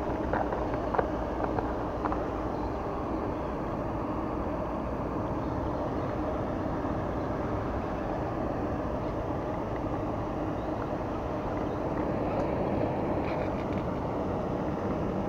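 Steady outdoor drone with a faint constant hum, with a few small clicks in the first two seconds.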